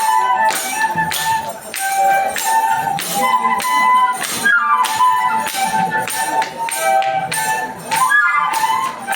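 A traditional Kenyan flute plays a melody of short high notes in repeating phrases over jingling rattles, which keep a steady beat of about two strokes a second.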